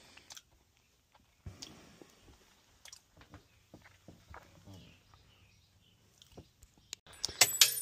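Soft footsteps with small knocks and rustles of someone moving through a cluttered room. Near the end come several louder, sharp crunching clicks.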